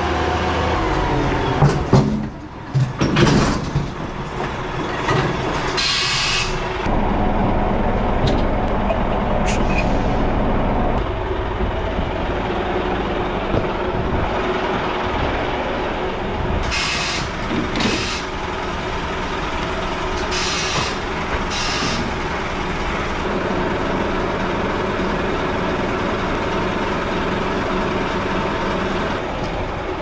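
A heavy truck's diesel engine running steadily, with about five short hisses of air from the truck's air system and a few knocks and clatters a couple of seconds in.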